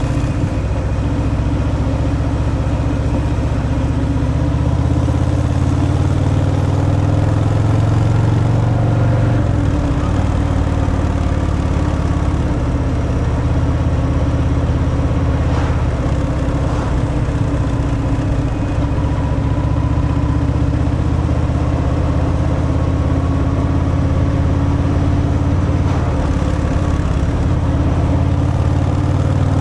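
Harley-Davidson Fat Boy's air-cooled V-twin running through its stock exhaust while riding, a steady low engine note whose pitch shifts about ten seconds in.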